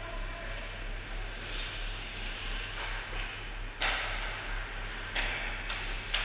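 Ice hockey play on rink ice: skates scraping in swelling patches, one sharp loud crack about four seconds in and a few lighter knocks near the end, over a steady low hum.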